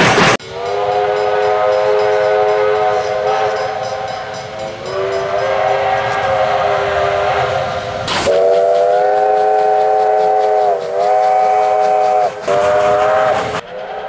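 Victorian Railways short-bell five-chime steam whistle on an R class locomotive, sounding long blasts of one steady chord. Several recordings are joined by sudden cuts, and the chord sags briefly in pitch a couple of times.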